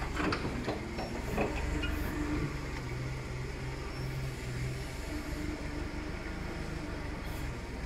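A vehicle engine running steadily at low revs, a constant low rumble with a steady low hum through the middle.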